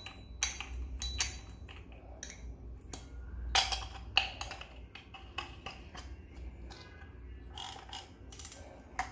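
Sharp clicks and knocks of metal parts as the spool of a large Shimano saltwater spinning reel is handled and seated back on its shaft over the drag, with a quieter stretch of fine mechanical ticking from the reel's workings between them.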